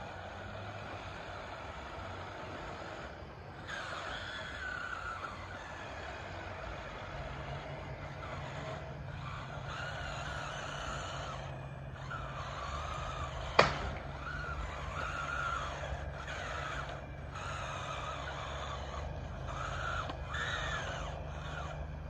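RC bulldozer's drive motors and gearing whining, rising and falling in pitch as it crawls and pushes on loose gravel, with one sharp crack a little past halfway through. This is the strain of a drive that the operator judges to be binding.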